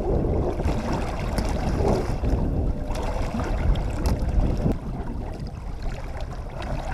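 Fishing boat under way at trolling speed: a steady low rumble with wind buffeting the microphone and water washing along the hull, plus a few light knocks.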